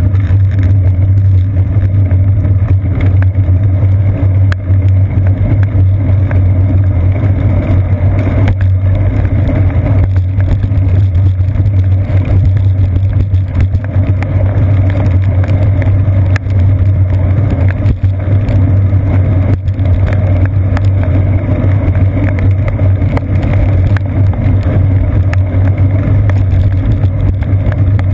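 Steady, loud low rumble from a seat-post-mounted GoPro Hero 2 in its housing, picking up road vibration and wet tyre noise as the bicycle rolls along a rain-soaked paved path.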